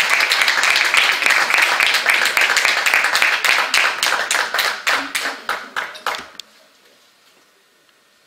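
Audience applauding. The dense clapping thins out to a few separate claps and stops a little over six seconds in.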